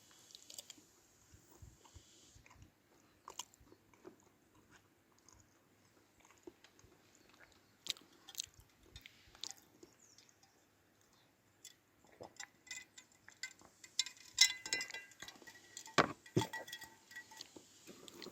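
Scattered small clicks and knocks of objects being handled, getting busier and louder in the last several seconds, with a short ringing clink among them.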